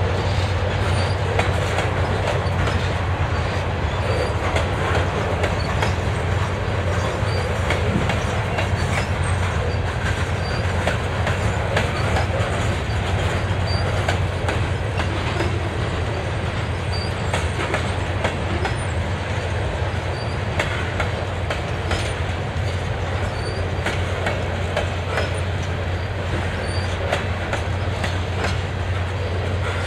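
Loaded covered hopper cars of a potash train rolling past at a steady speed: a continuous rumble of steel wheels on rail, with irregular clicks as the wheels pass over rail joints.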